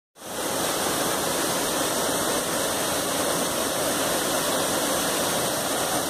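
Waterfall pouring into a pool, a steady rushing of water.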